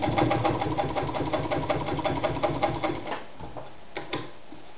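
1950s Adler Matic 153A sewing machine running a straight stitch through two layers of thin leather: a fast, even stitching rhythm for about three seconds, then it stops. Two sharp clicks follow near the end.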